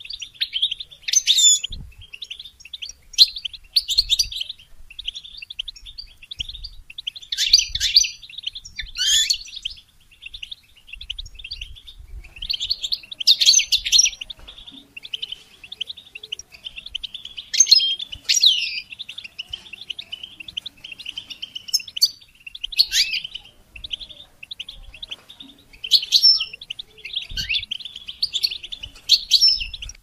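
European goldfinch song: quick twittering phrases with trills and chirps. Louder bursts come every few seconds over a softer, unbroken twitter.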